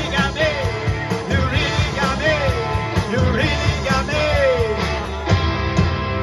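Live rock band playing amplified guitars and a drum kit, with a lead vocal. The sung lines swoop down in pitch about every two seconds.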